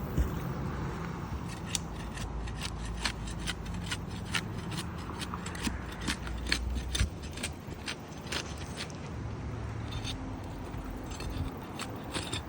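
Old asphalt shingles being unsealed: the adhesive seal strips are pried apart, giving irregular scraping and many sharp crackling snaps.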